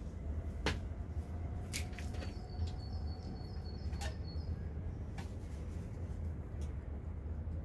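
A small bird chirping quickly, about eight short high notes in a row over a couple of seconds, over a steady low rumble with a few sharp clicks.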